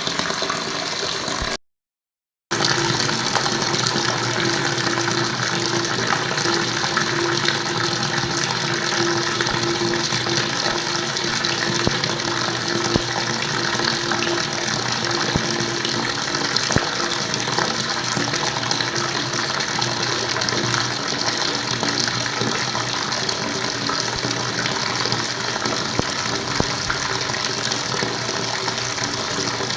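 Flowing water, a steady rushing noise. It cuts out completely for about a second near the start, then carries on unchanged.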